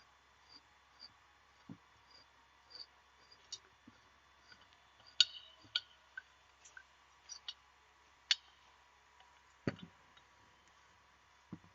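Scattered light metallic clicks and clinks of a bearing puller and ceiling-fan motor parts being handled, with a slightly louder knock about five seconds in and another near ten seconds.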